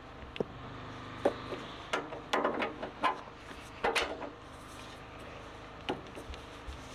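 Irregular clanks and knocks of metal parts being handled on the loader's attachment, several in quick succession in the middle and one more near the end, over a faint steady hum.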